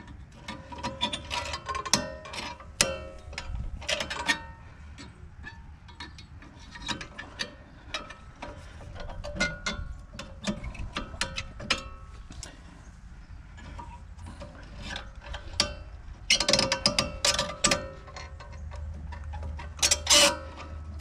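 Hand ratchet wrench clicking in quick runs with short pauses as a bolt on the rear brake is turned; the loudest runs come near the end.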